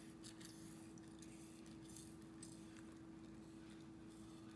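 Near silence: a steady room hum, with a few faint clicks from a hand-held lemon squeezer being pressed over a dish.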